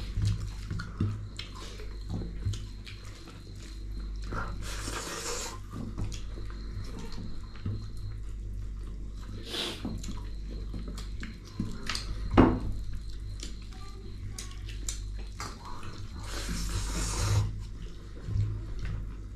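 Eating sounds: chewing and mouth clicks with scattered light knocks, two short hissing stretches, one about five seconds in and one near the end, and a sharper knock around the middle.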